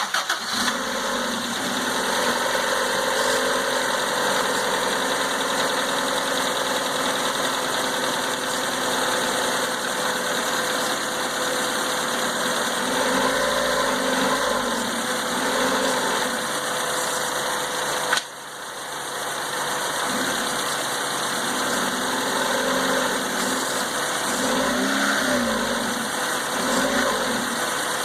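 Car engine running at idle, its pitch briefly rising and falling a few times, with a sudden short drop in level about two-thirds of the way through. The owner suspects bad motor mounts.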